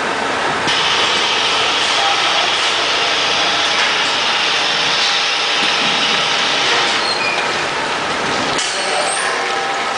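Automatic powder bag-filling and bag-sewing machine running: steady, loud industrial machinery noise as the filled woven bag is carried along the conveyor toward the sewing head. A brighter hiss comes in about a second in, and the lower rumble drops away near the end.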